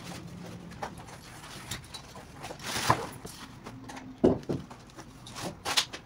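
A large cardboard box being opened and a solar panel pulled out of it by hand: scattered cardboard scrapes and rustles, a longer scrape about three seconds in, and a few sharp knocks in the second half.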